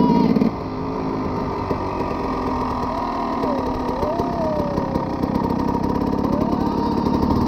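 KTM EXC 300 two-stroke single-cylinder engine heard from on the bike: the throttle closes about half a second in and the engine drops to a steady, low-revving run.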